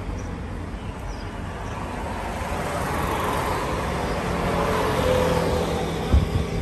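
Road traffic on a multi-lane street, swelling as a single-decker city bus drives past about four to six seconds in, its engine hum the loudest part. A short thump comes near the end.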